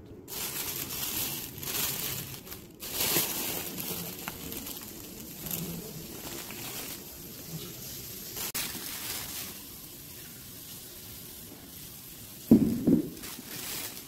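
Thin plastic grocery bags rustling and crinkling as they are handled and opened, with two quick knocks near the end as a sauce jar is set down on a wooden table.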